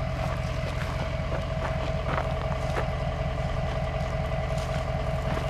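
Truck engine running steadily, with a steady whine over the low engine drone and a few light ticks.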